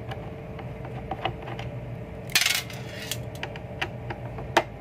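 Small metal clicks and taps of screws and a magnetic screwdriver being handled, with a brief metallic jingle a little past halfway and a sharper click near the end.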